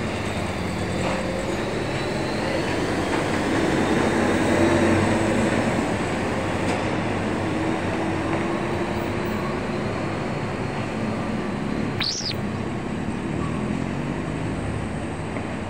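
Road traffic on a steep hairpin bend: a loaded heavy diesel lorry's engine labours round the turn, and motorcycles and cars pass. It is loudest around four to five seconds in. A brief high squeal rises and falls about twelve seconds in.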